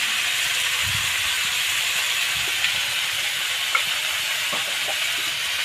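Young jackfruit pieces sizzling steadily in hot oil in a metal kadai, with a soft low thump about a second in and a few faint pops.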